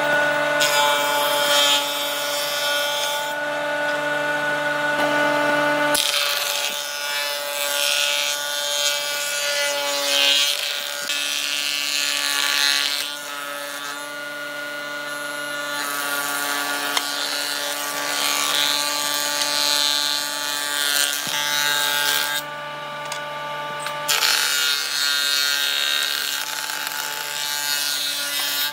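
Electric power tool running steadily while working wood: a constant motor whine with a rasping cutting or abrading noise that swells and eases as the tool is pressed against the wood.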